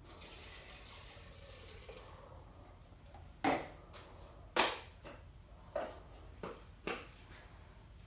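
A soft hiss, then a run of five sharp clicks and knocks over about three and a half seconds, the two loudest about a second apart: equipment being handled.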